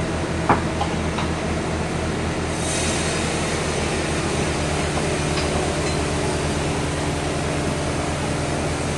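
Sawmill machinery running steadily with a low, pulsing engine hum, with a sharp knock about half a second in.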